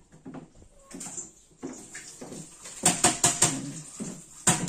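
Sharp clicks and clinks: a quick run of them about three seconds in and a few more near the end, with fainter scattered knocks before.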